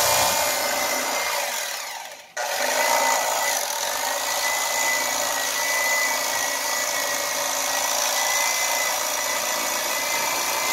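Electric fillet knife running as its blades cut into a jack behind the head, a steady buzz with a thin whine. The motor winds down about two seconds in and starts again at once.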